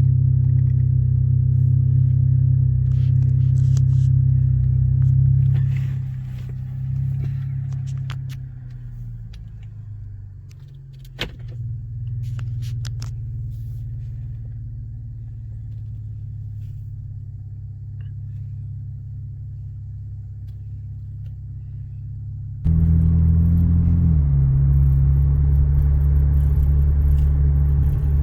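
Cadillac ATS with a muffler delete, its exhaust drone heard from inside the cabin while driving: a steady low hum. The drone eases off and falls in pitch about six to eleven seconds in, with a few light clicks, then runs quieter. It turns suddenly louder again about twenty-three seconds in and steps down in pitch a moment later.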